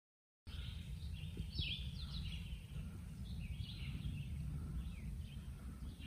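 Songbirds singing in the woods, short high phrases every second or so, over a steady low rumble. The sound begins after a brief silent dropout.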